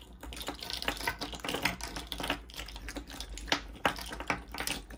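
Irregular light clicking and clinking of a chunky statement necklace, gold-tone metal settings and cabochon pieces knocking against each other and the tabletop as it is pushed and rearranged to lie straight.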